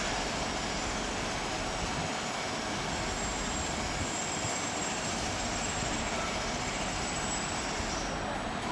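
Steady hum of city traffic, an even noise with no single vehicle standing out.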